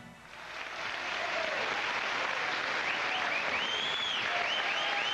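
Studio audience applauding, the clapping swelling up just as the theme music stops, with a few high whistles from the crowd from about three seconds in.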